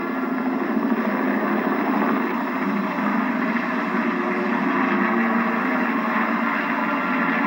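Steady engine and rotor noise of a helicopter in flight from a film soundtrack, heard through a small CRT television speaker playing a VHS tape.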